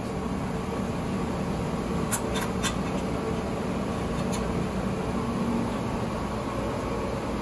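Steady hum of laundry-room machinery. Three short sharp clicks come about two seconds in and one more a little past the middle, from handling the stainless-steel conical lint filters.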